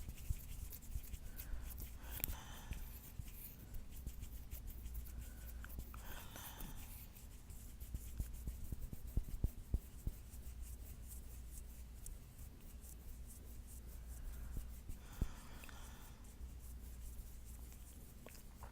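Fingernails scratching a palm close to the microphone, as a dense run of fine scratchy clicks. Slow heavy breaths rise over it three times.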